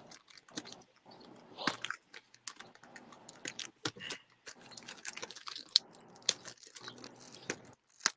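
Quiet, irregular crinkling and crackling of a flag and its plastic packaging being handled.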